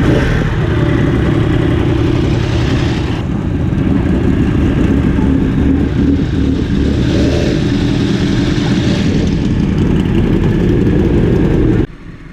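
Sport motorcycle engine running loudly and steadily, cutting off abruptly near the end.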